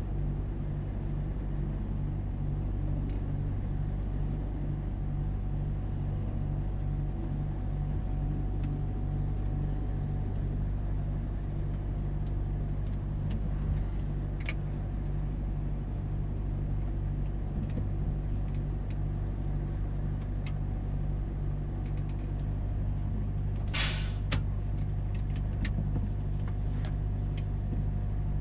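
Scania truck's V8 diesel engine running steadily under way, with a short sharp noise about three-quarters through.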